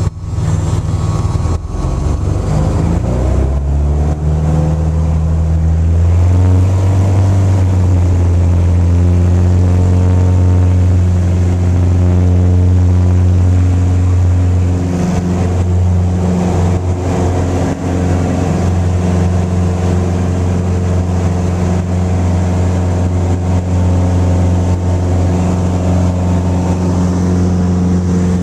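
Light aircraft's piston engine and propeller heard from inside the cockpit, the engine note rising over the first few seconds as the throttle opens to full power for takeoff, then holding steady through the takeoff roll and climb-out.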